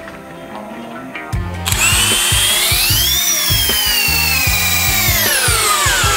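DeWalt cordless drill driving a long screw into a timber floor joist. The motor's whine starts about a second and a half in, rises in pitch, holds, then sinks as it slows near the end. Background music with a steady bass beat runs underneath.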